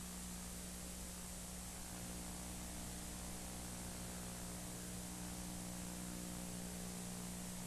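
Faint, steady hiss with a low electrical hum underneath: the background noise of an old broadcast recording, with nothing else heard.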